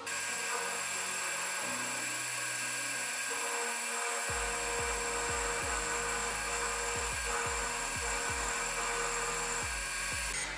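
Metal Master X40100 screw-cutting metal lathe running, its chuck spinning hexagonal bar stock: a steady whine from the spindle drive that stops near the end.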